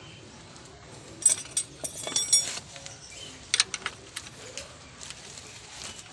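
Metal wrenches clinking and jangling together in a hand: a quick run of sharp metallic clinks with a short ring about one to two and a half seconds in, then a couple more clinks a little past the middle.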